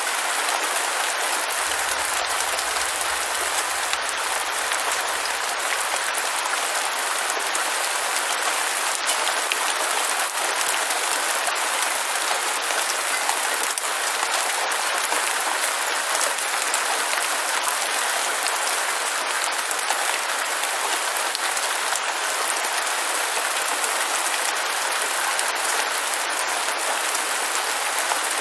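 Steady rain: a dense, even hiss with scattered small ticks of drops.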